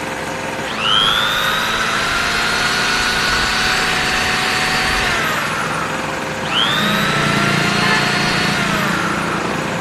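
Small two-stroke portable generator engine running while a corded electric drill plugged into it is run twice as a load, its motor whining up to speed, holding, and winding down each time. This is a governor load test: the engine is meant to pick up speed by itself when the drill loads it, and the owner finds it still needs adjusting.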